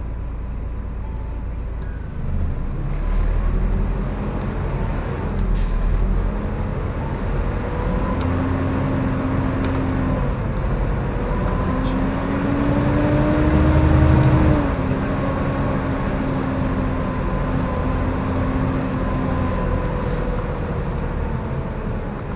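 Volvo B7TL double-decker bus under way: steady engine noise, then the bus pulls away about two seconds in. A loud whining 'hoovering' note rises with speed, drops suddenly past the middle, and carries on lower before fading.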